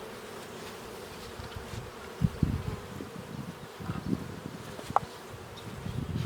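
Honeybees buzzing steadily around a worked hive, with a few soft low knocks a couple of seconds in.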